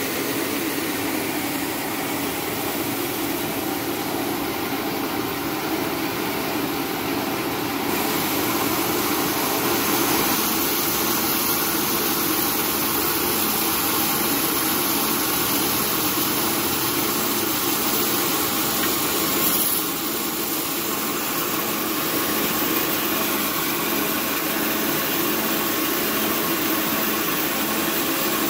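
Small electric-motor rice milling machine running steadily as it mills paddy into white rice, a continuous machine drone with a steady hum, a little louder after about ten seconds.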